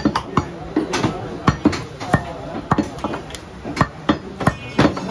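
A large butcher's knife chopping beef on a round wooden log block: sharp, irregular chops at about two to three a second.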